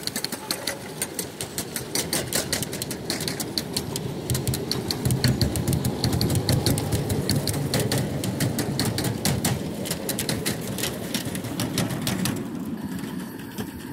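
Steel wheels of a 1½-inch-scale ride-on railroad train's cars rumbling along and clicking rapidly over the rail joints as the train rolls past. The clicks die away near the end.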